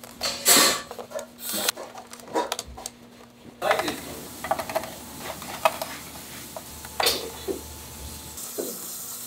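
Kitchen work noise: scattered clicks, taps and knocks of small pieces and utensils on stainless-steel trays, the loudest about half a second in and about seven seconds in, over a steady low hum.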